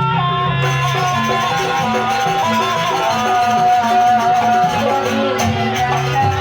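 Live Javanese jaranan dance music. A melody moves in held, stepped notes over drumming and percussion.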